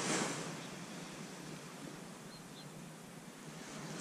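Small waves breaking and washing up a sand beach: one wash swells right at the start and fades away, with two faint high chirps about two and a half seconds in.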